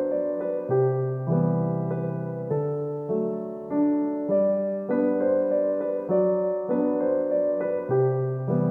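Background piano music: a gentle piece of struck notes and chords, a new note or chord about every half second to a second.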